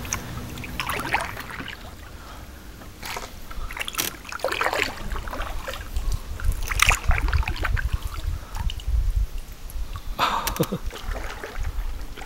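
Wooden canoe paddle dipping and pulling through duckweed-covered water: irregular splashing and dripping strokes a second or more apart, over a low rumble.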